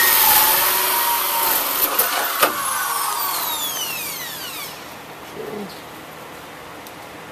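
Corded drill spinning a 2¾-inch hole saw in reverse against PVC pipe with a loud, steady grinding noise. It stops with a click about two and a half seconds in, and the motor winds down with a falling whine over the next two seconds, leaving the steady noise of a greenhouse fan.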